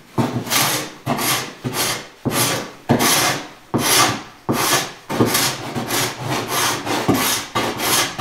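A hand paint scraper, its blade filed sharp, scraping the inside of a cedar-strip canoe hull in quick repeated strokes, a little under two a second. Each stroke is a short rasp as the blade cuts a clean shaving from the wood, fairing the hull.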